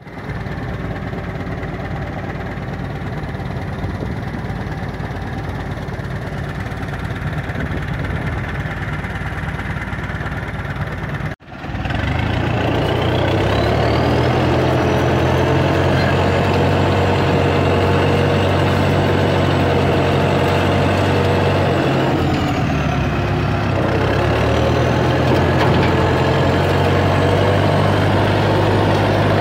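Massey Ferguson 292 tractor's diesel engine running steadily. After a cut about eleven seconds in, it is louder, heard from the driver's seat as the tractor drives through brush with a disc harrow hitched. The engine briefly dips in pitch about two-thirds of the way through.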